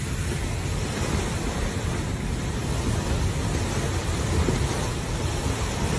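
Tornado wind driving heavy rain, with the gusts buffeting the microphone: a loud, unbroken rush with a fluttering low rumble.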